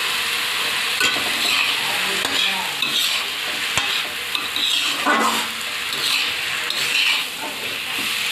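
Bottle gourd and potato pieces sizzling in hot oil in a metal kadai while a flat metal spatula stirs and scrapes them across the pan in repeated strokes, with one sharp tap about four seconds in.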